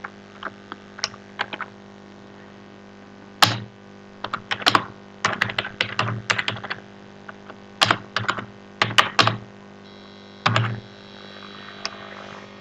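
Typing on a computer keyboard: sharp key clicks in short, irregular bursts with pauses between them, over a steady low hum.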